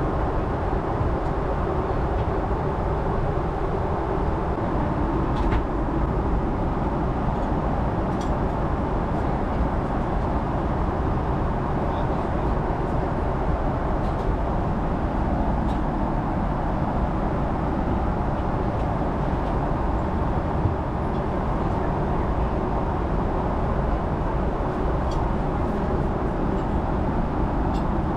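Steady low rumble of jet engines and airflow heard inside a Boeing 777 airliner cabin, with a few faint ticks.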